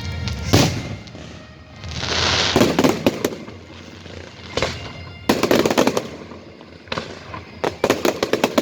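Fireworks going off: a sharp bang, a hiss that breaks into crackling, more bangs, and a quick run of sharp crackling reports near the end.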